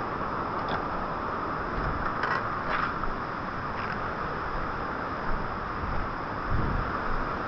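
Steady rush of wind and road noise from a Hero Xpulse 200 motorcycle on the move, with a few faint short knocks.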